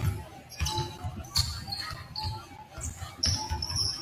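Basketball dribbled on a hardwood gym floor, a run of repeated bounces, with a few short, high sneaker squeaks on the court.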